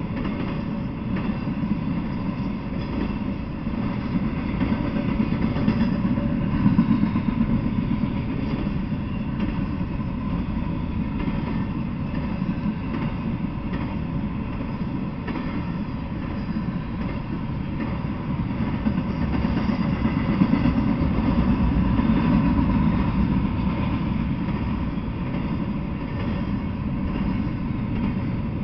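Intermodal freight train cars carrying containers and highway trailers rolling past, a continuous low rumble and clatter of steel wheels on the rails that swells and eases slightly.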